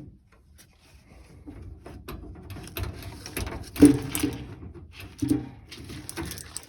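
Steel tool box drawers being handled: a run of knocks and clatter, with a loud clunk about four seconds in and a smaller one about a second later.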